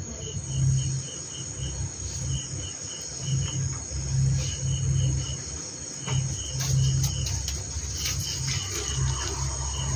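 A cricket chirping: trains of quick, even pulses at one high pitch, each train lasting about a second, with short gaps between. A low hum swells and fades underneath.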